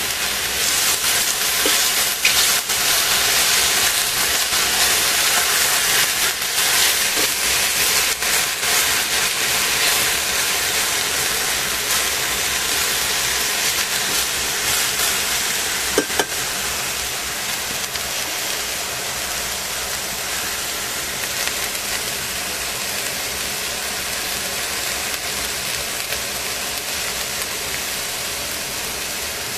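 Pot of cabbage, carrot and shimeji mushrooms cooking on the stove: a steady hiss of steaming and sizzling, a little louder in the first ten seconds. A short click sounds about sixteen seconds in.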